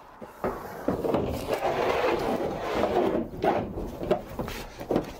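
A large thermal van lining sheet being manoeuvred into the van and pressed against the side wall: a continuous scraping rub of the sheet against the van's panelling, with a few knocks as it bumps into place.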